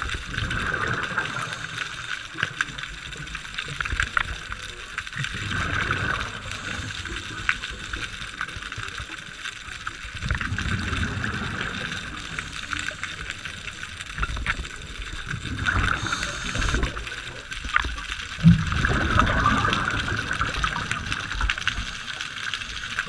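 Scuba regulator breathing heard underwater: bursts of exhaled bubbles gurgling about every four to five seconds.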